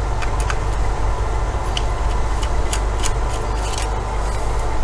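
A steady low hum with about a dozen faint, scattered light clicks from a screwdriver and small parts being handled while a router's screws are taken out.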